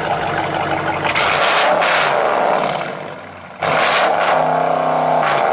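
A parked car's engine revved hard twice. The first rev swells and dies away over about three seconds, and a second one starts suddenly about three and a half seconds in.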